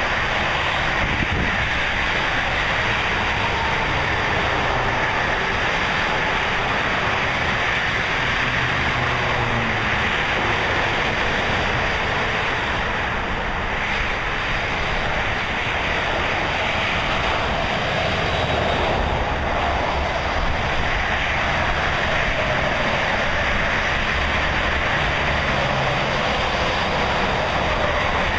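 Steady highway traffic noise: a constant wash of tyre and engine sound from many vehicles, with no single car standing out.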